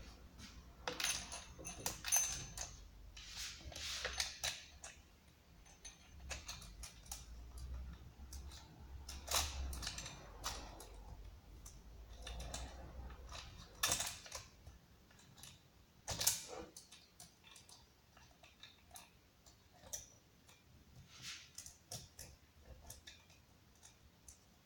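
Handling noises of things being unpacked: irregular clicks, taps and rustles, with two sharper knocks a little past the middle.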